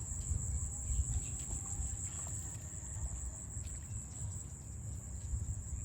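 Steady high-pitched chorus of insects, such as crickets, over a low uneven rumble.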